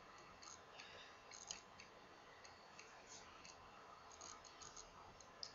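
Near silence: faint room hiss with a few soft clicks.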